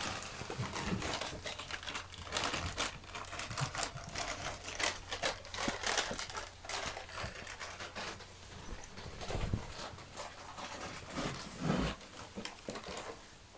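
Cardboard cereal box rustling, scraping and bumping irregularly as a black Labrador moves with its head stuck inside it, with a couple of heavier bumps late on.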